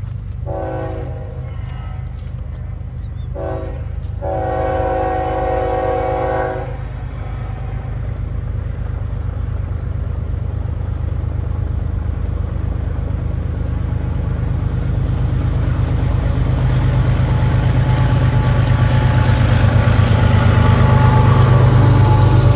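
Air horn on the lead Norfolk Southern ES44AC of a five-locomotive freight train: a long blast, a short one, then a longer one over the first seven seconds. After that, the low diesel rumble of the approaching locomotives grows steadily louder.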